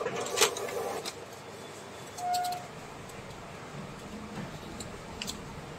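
A few sharp computer-mouse clicks over a faint steady room hiss, with one short high note about two seconds in.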